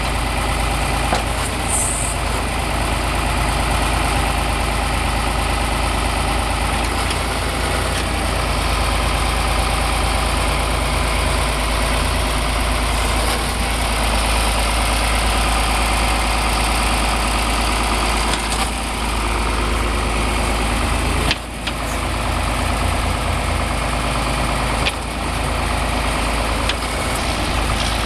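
Tractor engine running steadily, with a brief dip in level about two-thirds of the way through and another shortly after.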